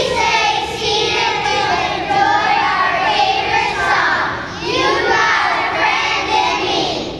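A class of young children singing a song together in unison; the singing stops near the end.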